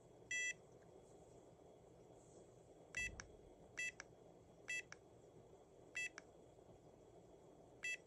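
The WELOCK SECBN51 fingerprint lock knob beeping: six short, identical high beeps, one for each finger tap on the sensor or press of the wake-up button as it steps through its setup menu. A faint click follows most beeps.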